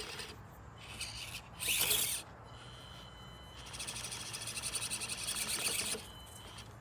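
Axial SCX24 Deadbolt micro crawler's small brushed motor and drivetrain whirring in short stretches as it crawls, with a thin high whine at times.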